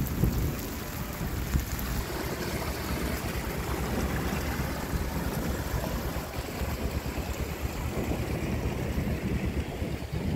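Muddy runoff water rushing down a hillside channel in a steady rush, with wind buffeting the microphone in low rumbling gusts.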